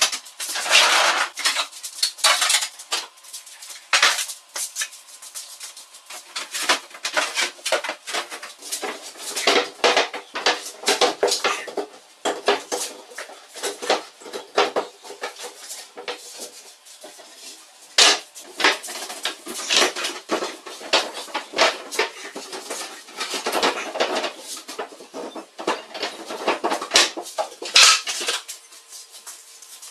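Dense, irregular clatter of knocks, bumps and scrapes from plywood cabinets and boards being handled and pushed against a wall, with a few harder knocks partway through and near the end.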